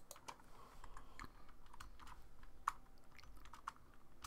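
Faint typing on a computer keyboard: an irregular run of key clicks, with one louder click a little before three seconds in.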